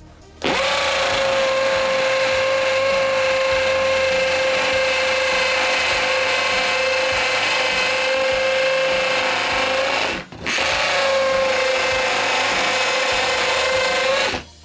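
Metabo SB 18 LTX BL I cordless hammer drill boring a 3/8-inch masonry bit into a concrete block, running steadily under load with a steady whine. It stops briefly about ten seconds in, then starts again and runs until just before the end.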